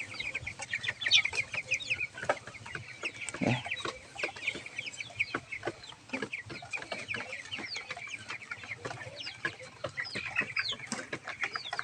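A flock of young broiler chickens peeping continuously, many short, high, falling calls overlapping.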